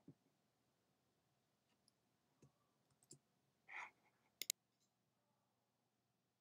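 Near silence with a few faint computer clicks: single clicks around two and three seconds in, then two sharp clicks close together about four and a half seconds in, as the screen-capture toolbar is used to stop the recording.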